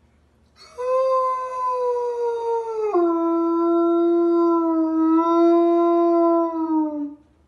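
A large wolf-like dog howling. One long howl that sags slightly, drops suddenly in pitch about three seconds in, holds there, and slides down as it fades near the end.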